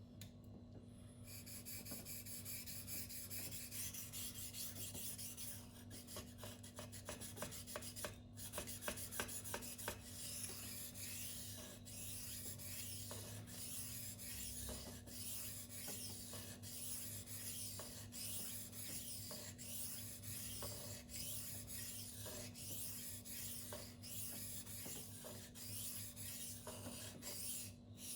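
Knife blade of 8Cr13MoV steel (Spyderco Tenacious) drawn in repeated strokes across a silicon carbide whetstone, a steady scraping rasp with a brief break about eight seconds in.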